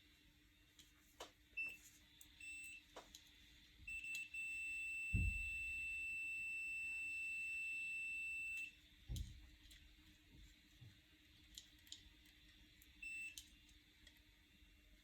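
Electronic beeper giving a few short beeps, then one long steady beep lasting about four seconds, and one more short beep near the end. Light clicks and two dull thumps come between the beeps.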